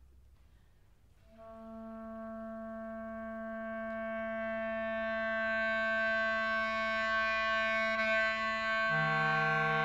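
Woodwind trio of clarinet, bass clarinet and bassoon playing long held notes. After about a second of near silence the notes enter and swell slowly, and a lower held note joins near the end.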